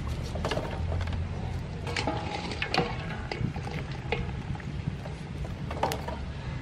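Metal ladle knocking and scraping against a large aluminium pot while boiled oxtail pieces are lifted out and dropped into a bamboo basket: a scatter of sharp clinks and knocks over a low steady rumble.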